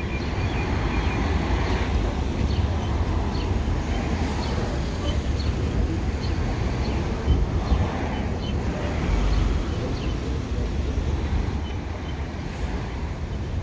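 Wind rumbling over the microphone of a moving electric motorcycle, with road and city traffic noise around it.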